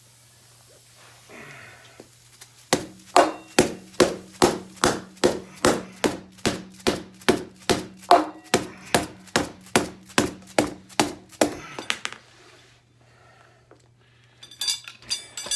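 A steady run of sharp knocks, close to three a second, starting about three seconds in and stopping near the twelfth second, over a low hum: a hammer striking the motorcycle's front tire to seat its bead on the rim.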